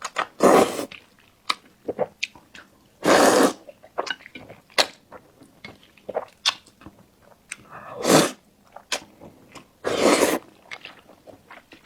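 Close-miked mukbang eating: wet chewing and mouth clicks, with four louder breathy bursts about half a second long.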